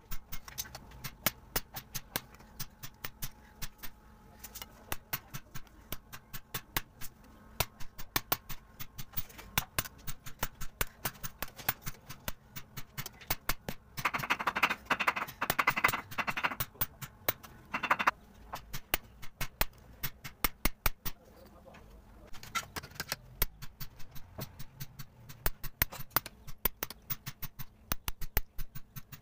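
Hand hammering on brass sheet: sharp metallic strikes at about two to three a second, uneven in spacing and strength. About halfway through comes a denser, louder rasping stretch lasting about four seconds.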